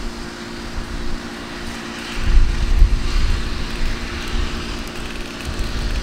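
Self-propelled track geometry car TGC 4 with its engine droning steadily as it moves along the track. From about two seconds in, low rumbling gusts of wind hit the microphone.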